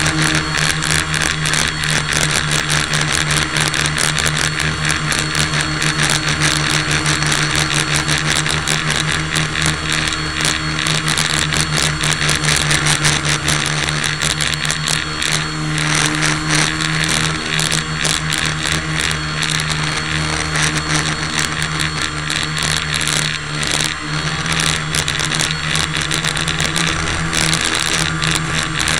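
A motor running steadily close to the microphone: a constant hum with a rough, rapid rattling buzz over it, unchanged in pitch.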